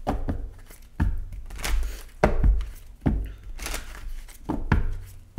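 A deck of tarot cards shuffled by hand: rasping slides of cards against each other, with a dull knock about once a second, five in all, as the cards are pushed or knocked down together.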